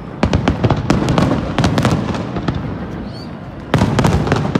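Aerial fireworks display: shells bursting with low bangs and quick clusters of sharp crackling reports, a fresh volley breaking in near the end.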